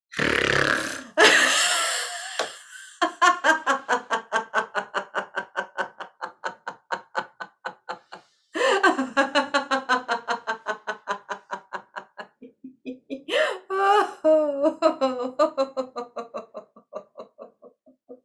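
A woman makes a loud, deliberate snore on a deep in-breath through the nose. She then laughs out in long runs of rhythmic "ha-ha-ha" pulses, about five a second, breaking off and starting again twice. This is the "snore laughter" exercise of laughter yoga.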